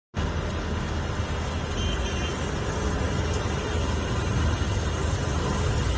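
Skid steer running a snow blower attachment: steady engine and machinery noise with a heavy low rumble.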